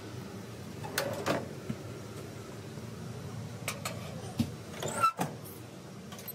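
A few knocks and clatters, the loudest about five seconds in, as a ceramic dish is handled and set into an oven, over a steady low hum.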